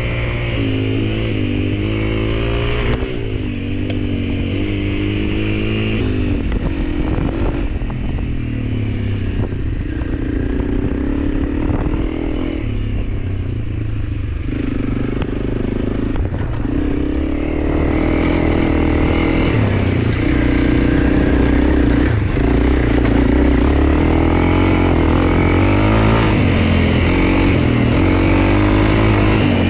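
Honda CRF300L's single-cylinder four-stroke engine running while ridden off-road, its pitch rising and falling with the throttle and growing louder in the second half.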